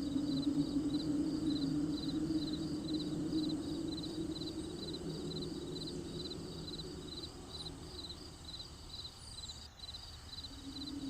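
Crickets chirping in an even rhythm, about three chirps a second, over a low steady hum that fades away in the second half.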